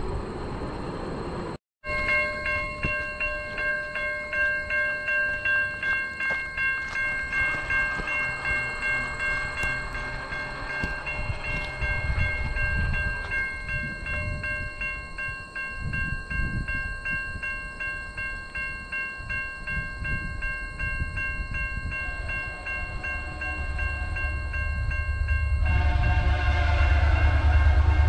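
Level-crossing warning bell ringing, pulsing about twice a second. In the last few seconds the rumble of an approaching VIA Rail passenger train builds and its horn sounds.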